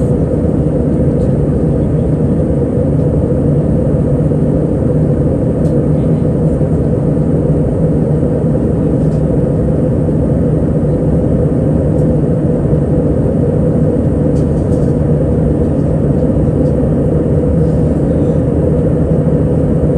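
Steady cabin noise of an Airbus A321 airliner in flight: the engines and the rush of air along the fuselage make a continuous low rumble with a hum that holds one pitch.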